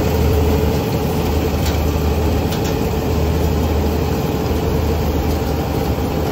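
Combine harvester running steadily as it cuts standing rice: a steady engine hum with a constant mid-pitched tone over it.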